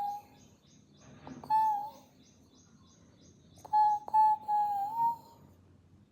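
A dog making a weird, high, hooting whine. A long wavering note trails off at the start, a short one comes about a second and a half in, then three more close together around four to five seconds in.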